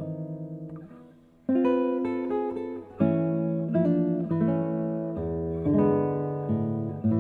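Background music: acoustic guitar playing slow chords, with a short lull about a second in before the next chord.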